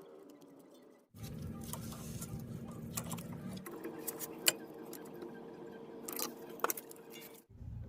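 Scattered light metallic clinks and taps of small steel brake parts and hand tools being handled, over a steady background hum.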